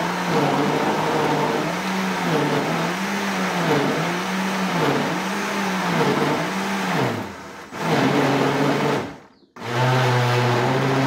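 Countertop blender motor churning thick cornmeal batter as more cornmeal is poured in, its pitch rising and falling about once a second under the load. Near the end it stops briefly and starts again, running steadily at a lower pitch.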